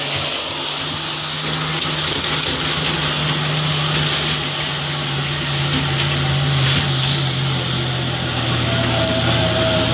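Diesel engine of a dump truck labouring up a steep dirt slope, a steady heavy drone. A high whine fades out in the first couple of seconds.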